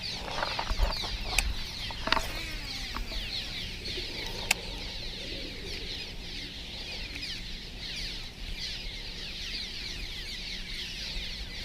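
Many small birds chirping and chattering at once, a dense run of quick falling chirps, with a few sharp clicks in the first couple of seconds and one more about four and a half seconds in.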